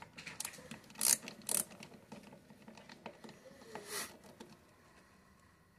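Ratcheting screwdriver backing Torx screws out of a Kastking Rekon 20RH fishing reel's side plate: a few short scratchy ratchet rasps, the loudest two about a second and a second and a half in, and another near four seconds.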